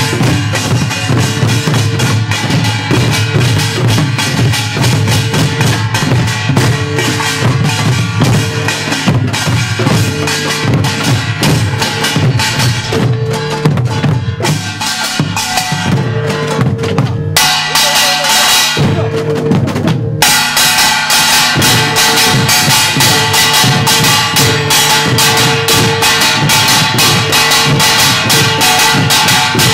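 Korean samul nori percussion played by a children's troupe: kkwaenggwari small gongs clang rapidly over janggu hourglass drums and buk barrel drums, with gong strokes ringing through. A little over halfway the drums drop out for a few seconds while the metal gongs keep ringing, then the whole ensemble comes back in.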